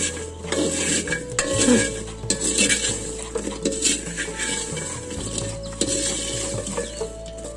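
Jackfruit seeds dry-roasting in a wide black pan, stirred with a wooden stick. The seeds rattle and the stick scrapes against the pan in repeated, irregular strokes. The seeds are being roasted until their skins turn a little black.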